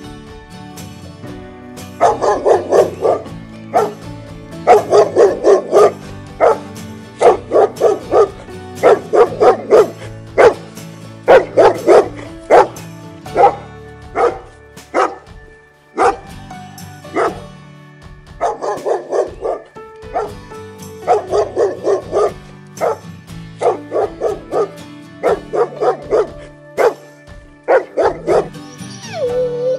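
A dog barking in quick runs of several barks each, with short pauses between runs and a longer lull about halfway through, over background music.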